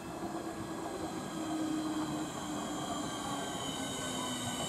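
Southeastern Class 465 Networker electric multiple unit pulling into a station platform. Its motor whine slides steadily down in pitch as it slows, over a steady rumble of wheels on rail, with a set of thin high whines above.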